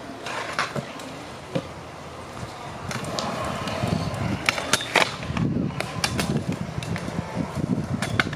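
Stunt scooter wheels rolling over concrete skatepark ramps, with sharp clacks of the scooter hitting the concrete. The rolling gets louder about three seconds in, and a quick run of loud clacks comes around the middle.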